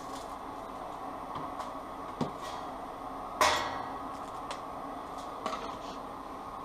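Hands working insulated electrical wire, making a few light clicks and taps. One sharper clack with a short ring comes about three and a half seconds in, over a steady background hum.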